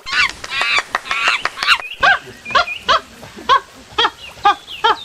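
Monkeys calling: about two seconds of shrill, squealing chatter, then short calls repeated evenly at roughly two a second.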